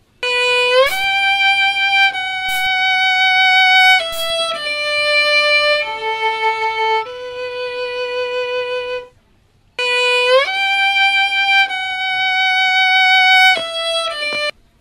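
Violin playing a slow melody of long held notes, opening with an upward slide. The phrase stops briefly about nine seconds in, then starts over with the same upward slide.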